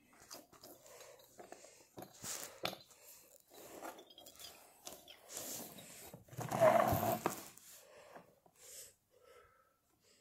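Handling noise from fidget toys: soft rustling and scattered light clicks as a stringy fidget ball is squeezed and the toys are touched, with a louder burst of rustling about six and a half seconds in.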